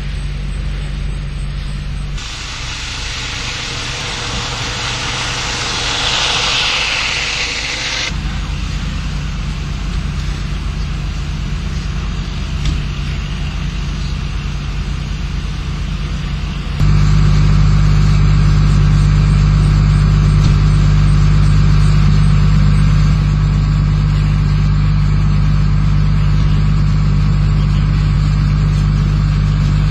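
Vehicle engines idling steadily with a low, even hum. A rushing noise passes a few seconds in, and the engine hum gets louder about halfway through.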